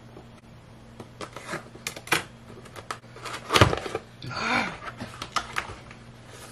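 Cardboard box being opened by hand: scattered clicks and scrapes of the flaps and lid, a thump about three and a half seconds in, then a rustle of packaging.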